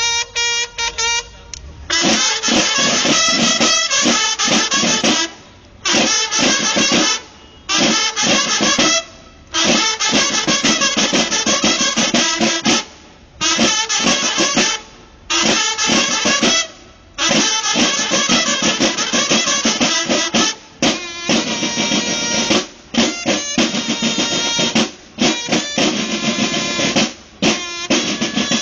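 A banda de guerra's snare drums play a marching cadence in short phrases, all stopping together for brief breaks about every two seconds. In the later part, bugles hold steady notes over the drumming.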